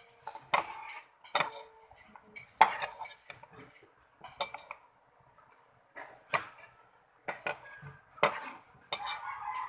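Cutlery clinking and scraping against a plate while eating, about nine short strokes with pauses between them.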